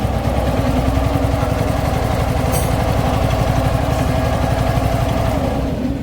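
Royal Enfield Meteor 350's J-series single-cylinder engine idling steadily with a fast, even beat. The mechanic says it sounds as if the main bearings are noisy, a common problem in this engine.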